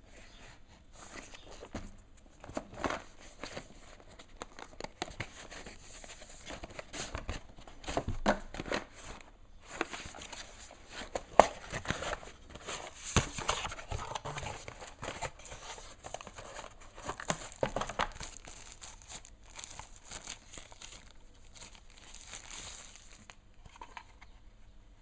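Packaging of an Android TV box being handled and opened: plastic and paper crinkling and tearing, with irregular clicks and knocks of the box, busiest and loudest in the middle.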